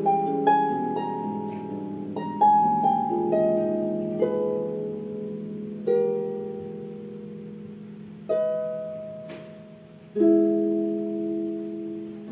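Harp being played in a slow improvisation: a quick run of plucked notes at first, then chords spaced a couple of seconds apart, each left to ring and fade.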